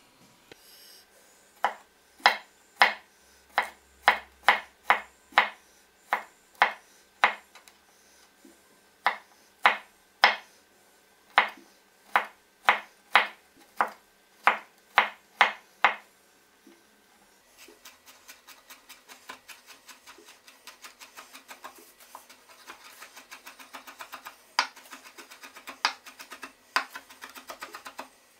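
Chef's knife chopping garlic on a wooden cutting board: single firm cuts about one and a half to two a second, then, from a little past halfway, a fast, lighter run of many small strokes as the garlic is minced fine.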